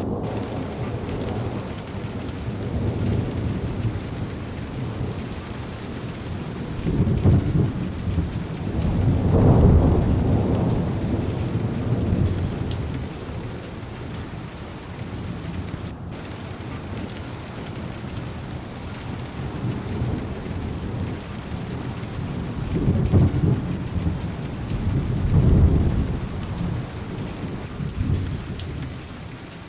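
Heavy rain falling steadily on a car window, with rolling thunder. Deep rumbles swell and fade twice in the first half and twice more toward the end.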